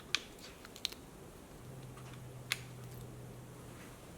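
Lego Technic plastic pieces being handled and fitted, giving three sharp clicks, with a faint low hum in the second half.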